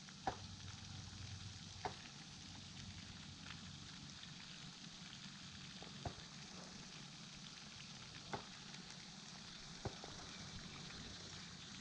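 Faint, steady outdoor background hiss, broken by five soft, brief clicks spaced about two seconds apart.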